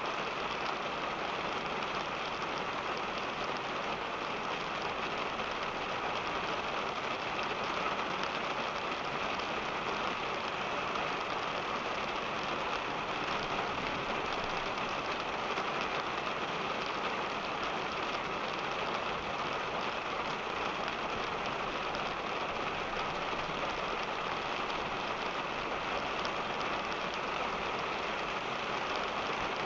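Steady rain pattering on a car's roof and windshield, heard from inside the cabin, with low road noise beneath it.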